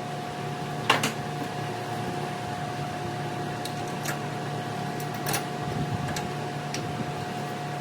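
Steady machine hum with a higher steady tone above it, broken by a few sharp clicks and taps of tools and metal parts being handled; the loudest click comes about a second in, with fainter ones later.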